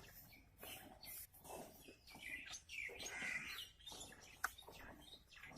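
Faint bird chirps, a few short calls clustered in the middle, with a single sharp tick near the end.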